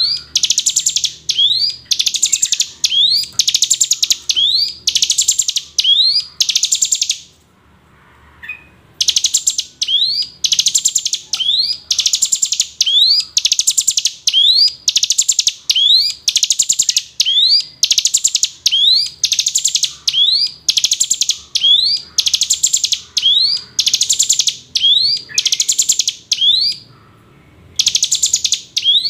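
Ciblek gunung, a prinia, singing its song over and over: each phrase is a quick rising note followed by a fast rattling trill, repeated about every 0.7 seconds, with a short pause about seven seconds in and another near the end.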